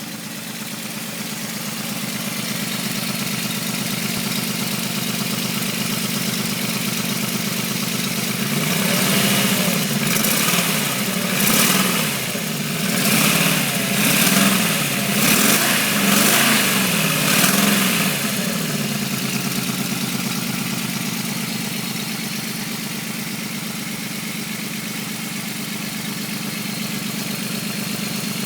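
Volkswagen VR6 narrow-angle V6 engine idling, then revved in a series of short blips, about six or seven, before settling back to idle. It carries a strange noise that the owner cannot place, present since the car stood unused for two weeks, along with a loss of power.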